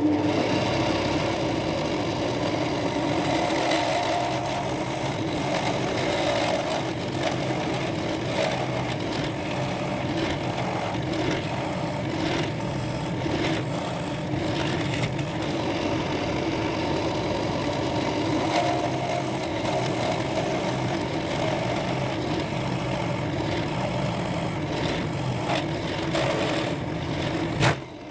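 Electric drill running steadily with a 13 mm bit boring straight through a block of teak wood, stopping just before the end.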